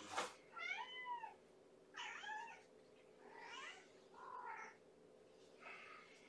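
Hungry domestic cat meowing again and again, about five fairly quiet meows spaced roughly a second apart, each rising and falling in pitch.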